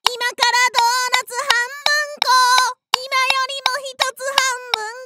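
A high-pitched, child-like voice singing a cheerful song in short held notes, mostly unaccompanied.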